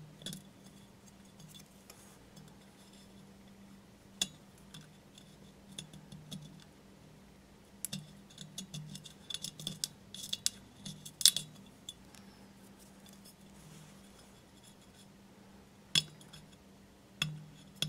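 Razor blade scraping and clicking against the glazed porcelain rim of a vase in short, scattered strokes, as half-cured clear epoxy residue is scraped off. The strokes come thickest around the middle, with a few sharp clicks near the end, over a faint steady low hum.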